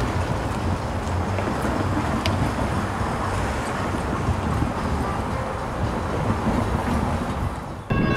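Steady outdoor rumble of road traffic, with no distinct events. It cuts off abruptly near the end.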